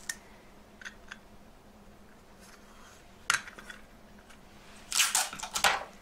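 Small clicks and taps of little silver pieces and tools being handled at the bench, then sellotape pulled off its roll in a short noisy burst near the end.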